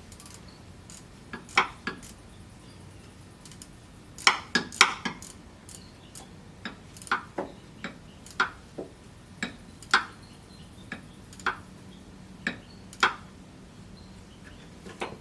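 Ratchet wrench clicking and metal tool clinks as a nut is tightened down on a car's starter motor: scattered sharp clicks, a few louder ones about four to five seconds in.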